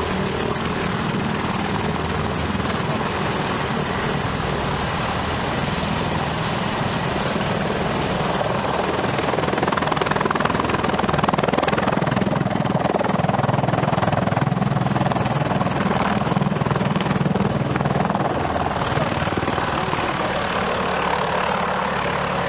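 Mi-35M (Hind E) attack helicopter's main rotor and twin turboshaft engines running at take-off power as it lifts off and flies low, a steady heavy rotor and turbine noise that swells somewhat louder around the middle as it passes close.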